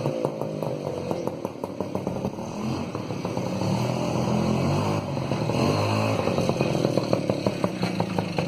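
Bajaj M80 moped's two-stroke engine running through an aftermarket silencer, ticking over at low revs with uneven exhaust pulses. The revs rise slightly twice, about three seconds in and again near seven seconds.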